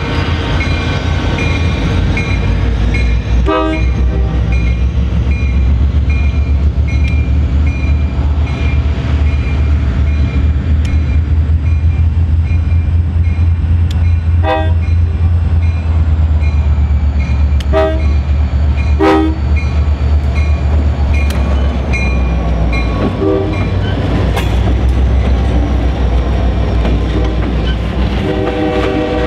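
A pair of EMD GP39-2 diesel locomotives, with turbocharged 12-cylinder engines, rumbling loudly as they pass, while the locomotive bell rings steadily about twice a second until it stops a little past the middle. A few short, sharp pitched blips break in, and near the end the rumble eases as boxcars roll by and a steady pitched tone sets in.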